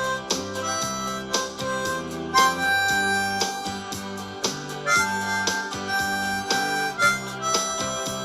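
Blues harp, a ten-hole diatonic harmonica, playing a solo of held and bent notes over a band backing track with a steady drum beat, bass and guitar.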